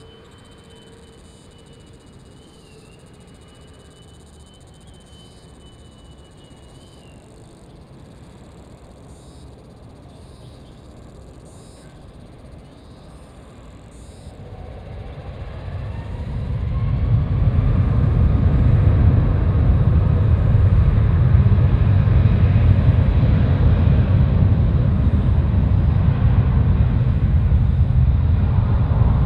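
Boeing 777's twin jet engines spooling up to takeoff thrust about halfway through: a rising whine builds quickly into a loud, steady, deep rumble as the takeoff roll begins. Before that there is only a faint distant hum.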